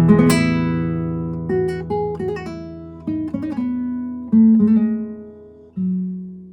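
Solo guitar music: a chord struck just after the start, then single plucked notes and short chords that ring and fade one after another, the last note dying away near the end.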